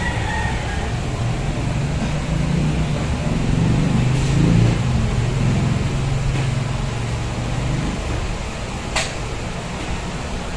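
Steady machine noise with a low hum that swells for several seconds in the middle and fades, and one sharp click near the end.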